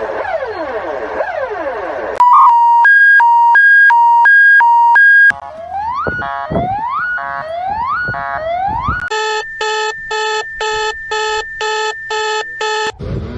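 Synthesized mock Emergency Alert System alarm tones changing in turn. First come repeated falling sweeps, then a very loud alternating two-tone beep, then four rising whoops, then a steady chord pulsing about twice a second.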